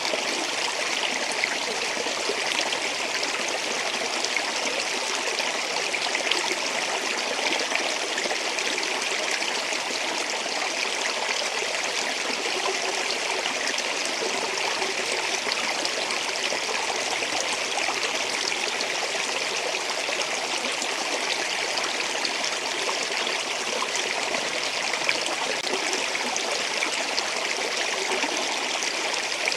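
Water flowing and splashing over rocks, a steady, even rush that stays much the same throughout.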